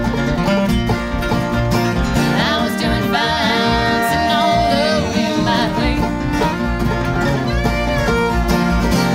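Background country-style music with plucked strings and a singing voice.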